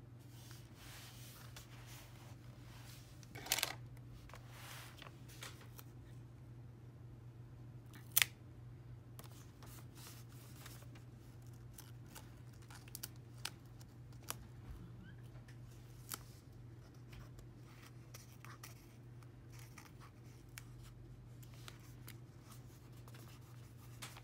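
Hands handling paper and stickers on a journal page: soft rustles and scratches with a few sharp clicks, the two loudest about three and a half and eight seconds in, over a steady low hum.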